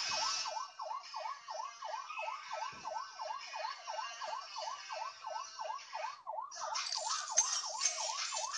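Police siren sound effect of a Snapchat police lens: a fast yelp siren sweeping up and down about three times a second, with a hiss above it.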